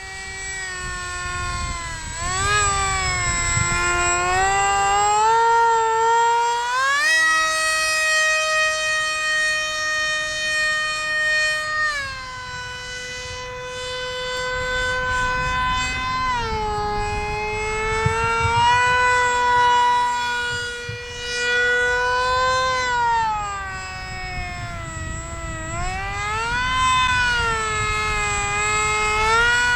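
Electric pusher motor and propeller of a foam SU-27 RC jet in flight, a quite noisy whine whose pitch rises and falls again and again, with a sharp climb about seven seconds in and dips around twelve, sixteen and twenty-four seconds.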